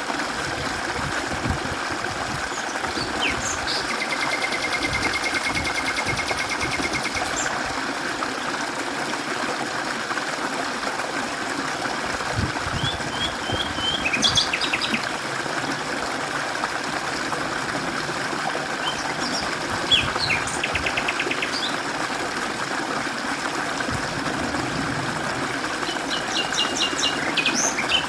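Mountain stream flowing steadily, with a bird singing over it in several rapid trilled phrases. The longest trill, about four seconds, comes a few seconds in; shorter trills and chirps come around the middle and near the end.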